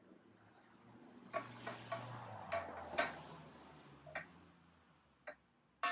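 Cast-iron straight edge rubbed back and forth along the dovetail way of a Bridgeport mill table to take a spotting-dye print of the scraped surface: metal sliding on metal, with a run of sharp clinks. The rubbing swells after about a second and fades near the end, leaving two last clinks.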